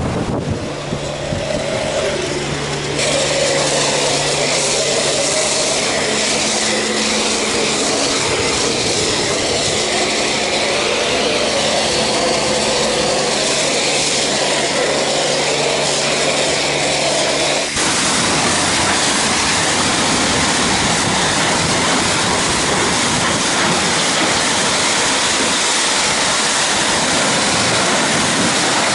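Self-service car-wash pressure wand spraying foam onto a car's body and windscreen: a loud, steady hiss of spray that swells about three seconds in. A steady low hum sits under it until a little past halfway, when the hum stops and the hiss turns coarser.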